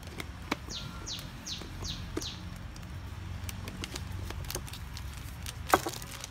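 A bird calls a quick series of five falling whistled notes about a second in. Scattered sharp clicks follow, the loudest a single knock near the end, over a steady low rumble.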